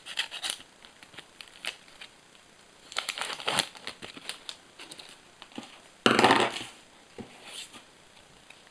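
Sticker packet being torn open and its wrapper crinkled, in short scattered rustles, with the loudest tearing crinkle about six seconds in.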